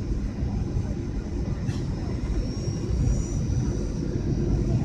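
Steady cabin noise inside a passenger airliner in flight: a low engine and airflow rumble with a faint high whine over it, and a brief tick about two seconds in.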